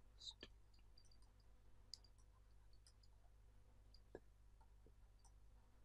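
Faint scattered clicks and ticks of a stylus tip tapping on a pen tablet during handwriting, over near-silent room tone.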